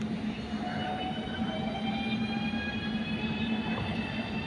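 Electric train pulling away: a whine of several tones slowly rising in pitch, over a steady low hum.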